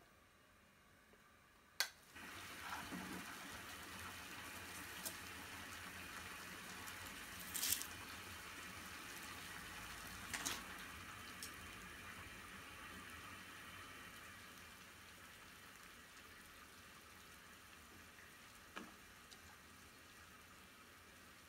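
Salted water boiling hard in a saucepan on a gas burner: a steady bubbling hiss that sets in about two seconds in after a sharp click, broken by a few knocks as nanohana stems go in and are stirred with chopsticks. The boil grows gradually quieter as the heat is turned down to a gentler simmer.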